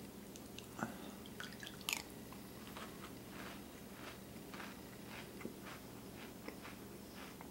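A person chewing milk-soaked Cinnamon Toast Crunch cereal: soft crunches, about two a second. In the first two seconds a metal spoon clicks sharply twice against the bowl.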